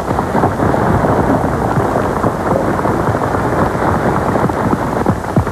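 Large audience applauding, a dense steady clapping that breaks out sharply as the introduction ends. It sounds dull and muffled, like an old recording with no treble.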